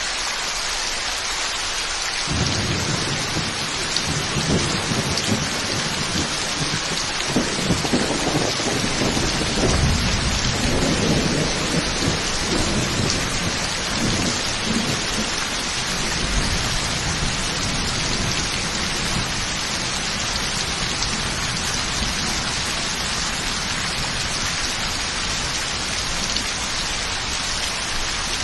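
Heavy rain falling in a steady hiss. A long roll of thunder starts about two seconds in, grows loudest a few seconds later, then slowly dies away under the rain.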